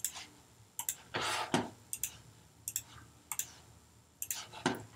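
A computer mouse clicking at irregular intervals, about six clicks, several of them doubled, each click placing the next node of an outline traced in a map editor. A short rustle comes a little over a second in.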